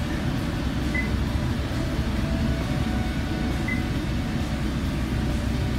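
Steady low hum inside the cabin of a 2017 Honda Pilot, from the idling engine and the climate fan. Two short high beeps, about a second in and near four seconds in, come as the touchscreen is pressed.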